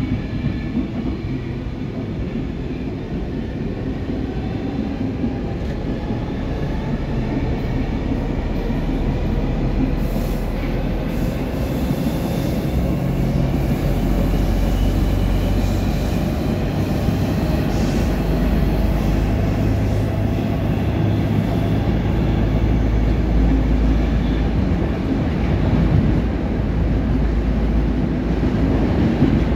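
Interior of a Stockholm metro C14 car accelerating away from a station into the tunnel: a steady rumble of wheels on rail that grows louder, under a faint whine that rises in pitch during the first dozen seconds and then levels off.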